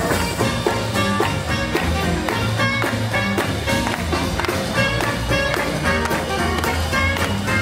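Swing music from a live band, with a steady beat and pitched instrument lines throughout.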